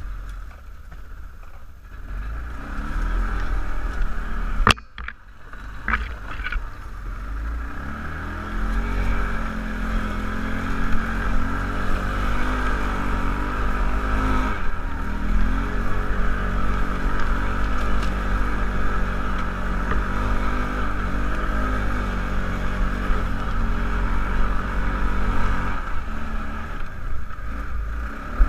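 Kawasaki ATV engine running under way: it picks up speed in the first several seconds, then holds a steady pace. There is a sharp knock about five seconds in.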